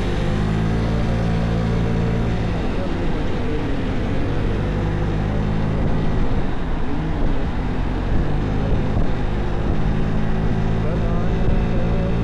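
Vespa Primavera 125 scooter's single-cylinder four-stroke engine running on the move, with wind and road noise. The steady engine tone fades into the road noise for several seconds about two to three seconds in, then comes back steady from about eight seconds in.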